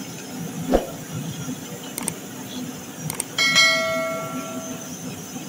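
A large pot of beef curry bubbling while cooking oil is poured in and a steel ladle stirs it, with a knock about three-quarters of a second in. A couple of clicks follow, then a bell-like ding about three and a half seconds in that rings away over a second or so, from a subscribe-button animation.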